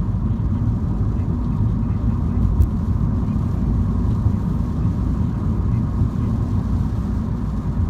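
Steady low road and engine noise inside a MINI's cabin while driving.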